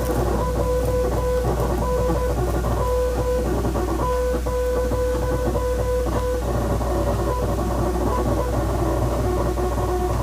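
Morse code: a single steady beep keyed on and off in short and long tones, dots and dashes, over a constant low hum.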